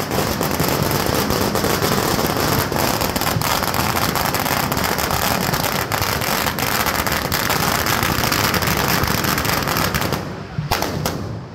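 Firecrackers going off in a dense, rapid crackle for about ten seconds, then thinning to a few last sharp cracks near the end.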